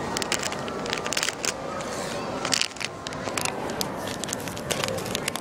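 Foil My Little Pony blind-bag packet crinkling in the hands as it is pulled open: an irregular run of sharp crackles.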